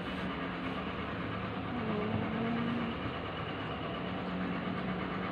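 A steady low mechanical hum runs throughout, with a faint held tone for about a second near the middle.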